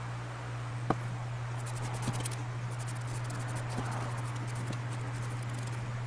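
Sharpie marker scratching on a wooden board in quick scratchy strokes, with a couple of light clicks about one and two seconds in, over a steady low hum.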